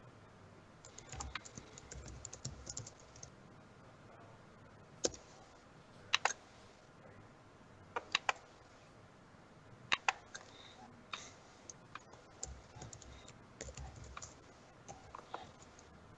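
Typing on a computer keyboard in short irregular spells, with a handful of sharper single clicks in between.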